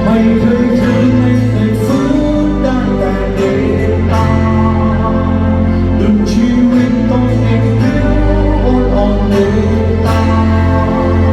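Rock band playing at a steady, loud level, with held, wavering melodic lines over a heavy bass.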